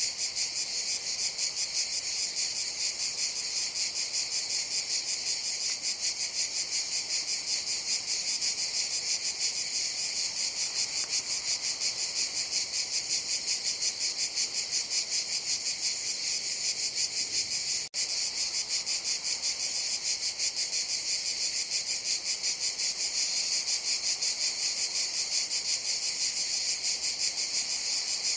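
A chorus of cicadas buzzing in a dense, high-pitched, rapidly pulsing drone that holds steady throughout. It breaks off for an instant about eighteen seconds in.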